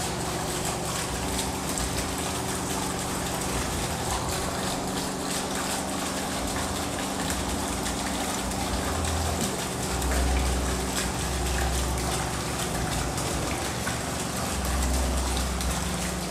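Steady rush of water at a fish pond, with a faint low hum under it and a few low rumbles about ten seconds in and near the end.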